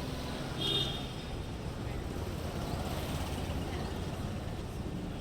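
Steady rumble of passing street traffic, with a brief high-pitched beep about a second in.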